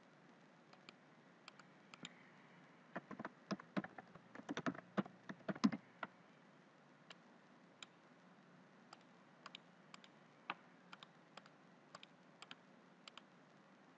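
Faint typing on a computer keyboard, a quick run of keystrokes lasting about three seconds, starting about three seconds in. After it, scattered single clicks, those of a computer mouse clicking options.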